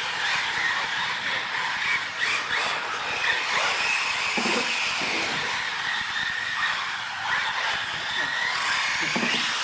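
Small electric radio-controlled UTVs racing on a smooth indoor floor: high-pitched motor whine gliding up and down with the throttle, over a steady hiss of tyres.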